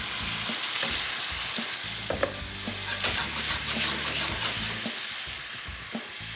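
Pulled chicken sizzling in a hot oiled pan as a tomatillo-jalapeño sauce is poured over it and stirred, with a few knocks against the pan.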